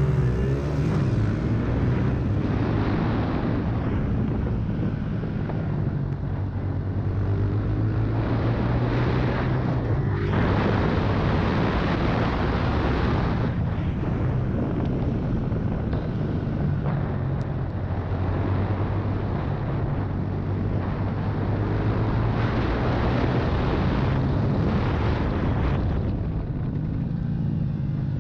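Honda CRF125's single-cylinder four-stroke engine pulling away, its note rising in the first second, then running on under load. A heavy rush of wind over the onboard microphone swells and eases several times as the bike speeds up and slows.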